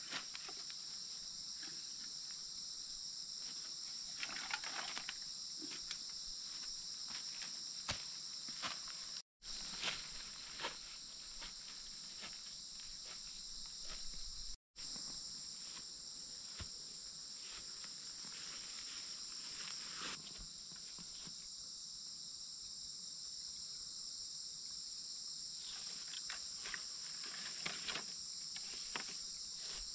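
Steady, high-pitched chorus of forest insects, with scattered rustles and light knocks from footsteps and handling of bamboo and vegetation. The sound cuts out completely twice, briefly.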